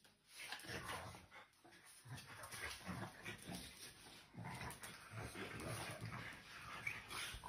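French bulldogs making short, irregular breathy dog noises at close range as the male mounts the female during mating.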